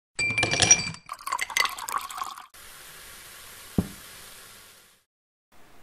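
Carbonated energy drink poured into a glass, with clinking and splashing for about two seconds, then a steady fizzing hiss. One short low thump comes in the middle of the fizz.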